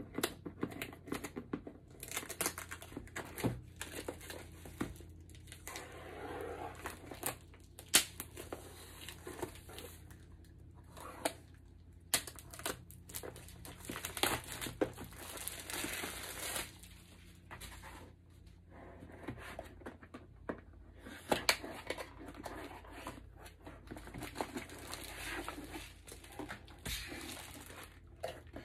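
Clear plastic shrink-wrap being torn and peeled off a cardboard box, crinkling and rustling irregularly, with occasional sharp knocks and taps as the box is handled.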